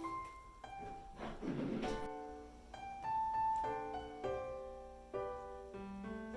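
Gentle background piano music, note after note, with a short noisy sound without pitch about a second in.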